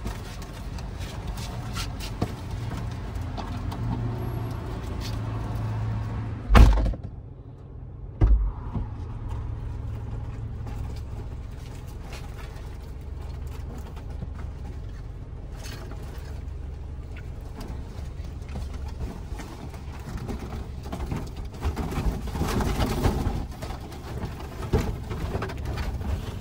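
Low steady hum of a car, with two heavy thumps about six and a half and eight seconds in.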